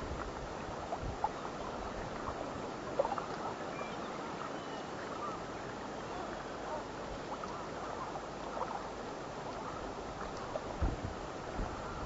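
Steady outdoor night ambience of wind and water at the shore, with a few faint short sounds scattered through.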